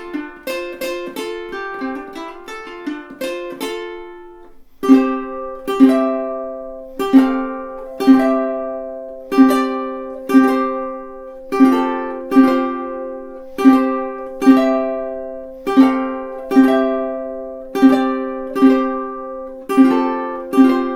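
Millar JA-260G all-solid acacia jumbo tenor ukulele being played. For about four seconds single notes are picked in quick succession, then full chords are strummed about once a second, louder, each left to ring out.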